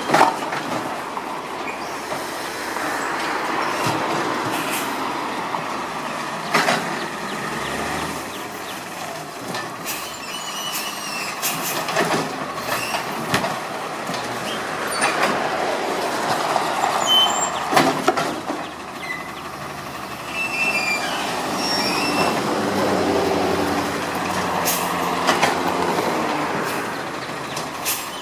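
Garbage truck at work: engine running under steady mechanical noise, with high metal squeals and scattered clanks and knocks.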